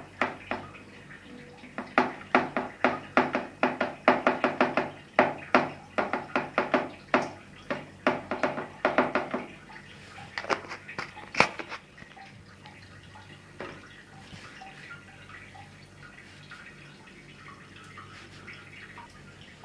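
Rapid light tapping on the plastic detergent drawer of a front-load washing machine as baking soda is knocked into it, about three or four taps a second. The taps thin out to a few louder scattered clicks and then stop.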